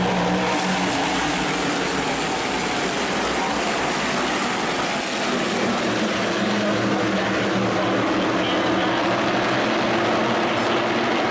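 A pack of NASCAR Whelen Modified race cars running at speed. Their V8 engines overlap into one steady drone, with several engine notes drifting slightly against each other.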